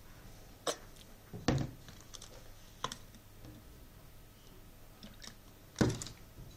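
Plastic bottles and a screw cap being handled on a tabletop: a few scattered clicks and knocks, the loudest about a second and a half in and again near the end.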